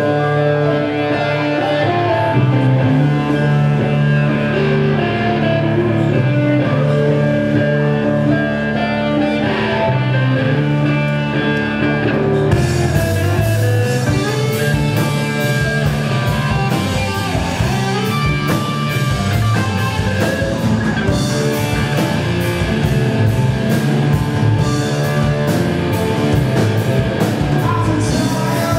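Live rock band playing: electric guitars and bass over a sustained groove. The drums and crashing cymbals come in hard about halfway through and drive on from there.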